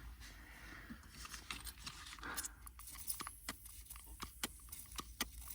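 Faint handling noises: scattered small clicks and crinkles, a dozen or so sharp ticks spread over a few seconds.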